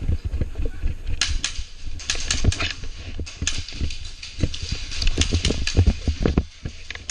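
Airsoft guns firing: sharp, irregular cracks of shots, thickest from about one to three and a half seconds in, over low thumps of movement.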